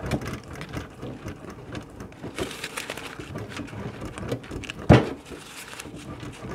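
Cold butter being grated on a stainless steel box grater into a bowl of flour: repeated scraping strokes, with one loud knock about five seconds in.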